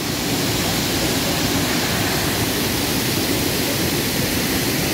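Waterfall pouring into a rocky plunge pool: a steady, unbroken rush of falling water.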